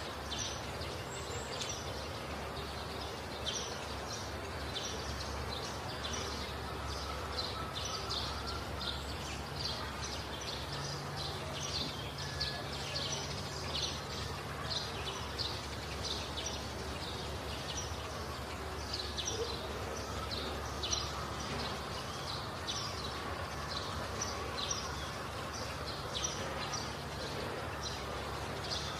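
Many small birds chirping without a break, several short high chirps a second, over a steady low hum.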